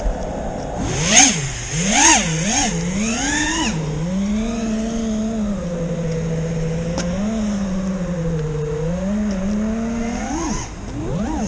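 FPV freestyle quadcopter's brushless motors (T-Motor Velox 2207 1950kv) and propellers whining under throttle. The pitch punches sharply up and down several times in the first few seconds as it lifts off, then settles into a steadier whine that wavers with the throttle, with a quick swoop near the end.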